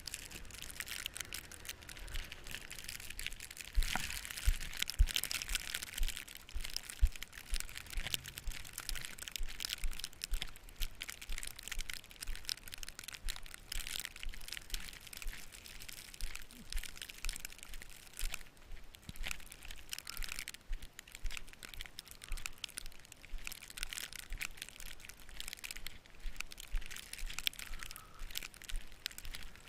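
Snow crunching and crushing in a dense, irregular run of short crunches throughout.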